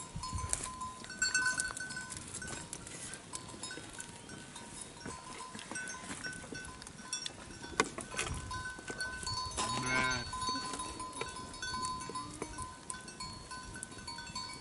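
Sheep bleating now and then, the loudest call about ten seconds in, with a bell ringing on and off. A single sharp knock sounds a little before eight seconds in.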